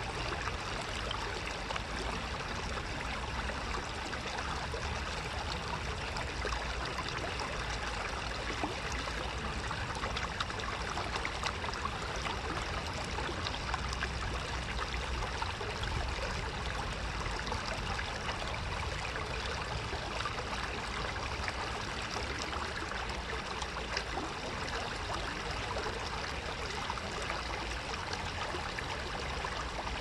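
Shallow river water flowing and babbling over stones, a steady, even rush.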